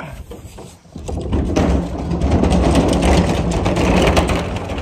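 Wheeled plastic trash can rolled over a concrete driveway, its wheels giving a steady rumble that starts about a second in.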